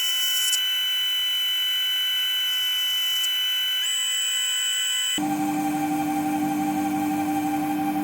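Small micro lathe running: a steady high-pitched whine of several fixed tones that changes abruptly about five seconds in to a lower, steady hum.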